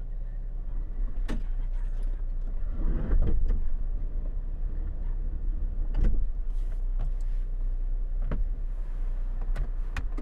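Steady low rumble of an idling car heard from inside its cabin, with a few short clicks and knocks scattered through it.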